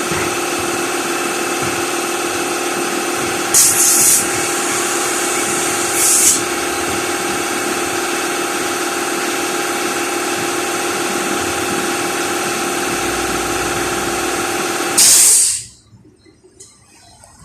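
A workshop air compressor's motor running with a steady hum. Three short bursts of compressed-air hiss come from the air nozzle, the last just before the machine sound cuts off suddenly about fifteen seconds in.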